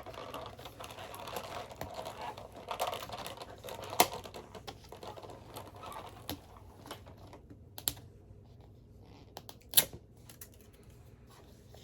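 Hands working at packaging to free something from it: rustling and scraping, then scattered sharp clicks and snaps, the loudest about four seconds in and another near the end.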